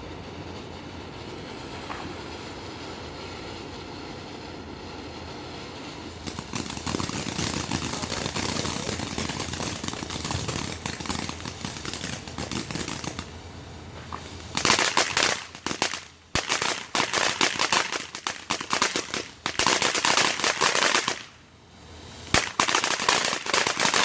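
Consumer fireworks going off: a steady hiss that grows louder about six seconds in, then from about halfway through dense rapid crackling pops in several bursts with short breaks between them.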